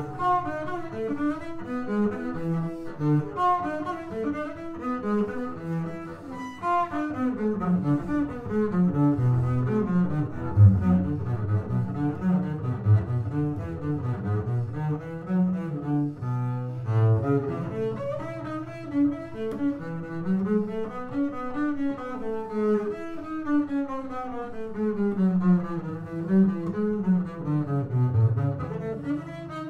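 Solo double bass played with the bow: a continuous étude line of quick scale runs and arpeggios climbing and falling across the range.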